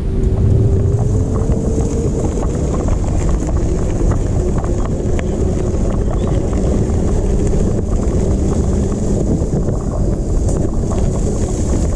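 All-wheel-drive e-bike riding along a rough trail while towing a cart: a steady rumble of tyres and wind on the microphone. Over it runs the thin whine of the electric motor, which rises a little in pitch in the first few seconds and then holds, with small scattered ticks from the path.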